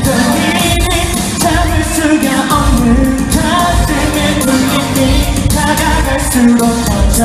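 K-pop song performed live: male voices singing into microphones over a loud backing track with a steady beat.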